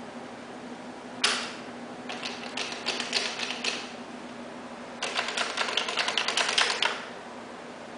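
A knock about a second in, then a Walkin' Wheels dog wheelchair rattling in quick runs of clicks as it is shaken by hand. The loose joints and parts of its frame clatter hardest in a dense stretch past the middle, a rattle that the shake test means as a sign of loose construction.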